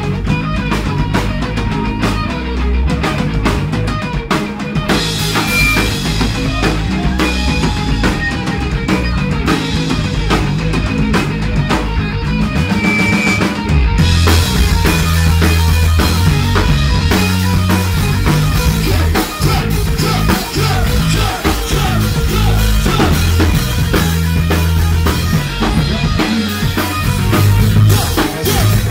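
Rock band playing live: drum kit and electric guitar. About halfway through the band gets louder, with more cymbal.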